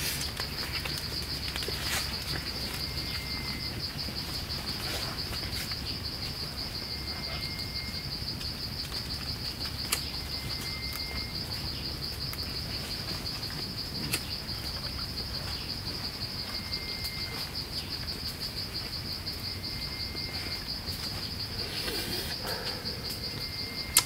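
Insects trilling steadily in the forest, a high, fast-pulsing buzz. A bird gives short, flat whistled notes every few seconds, and there are a couple of faint clicks.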